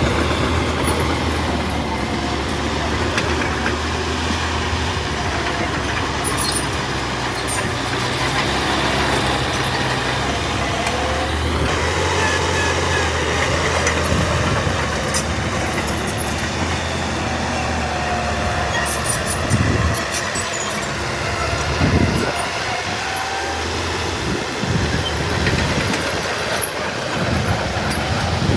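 Heavy diesel earthmoving machinery running steadily under load, with a wavering high squeal and a couple of heavy knocks about twenty seconds in.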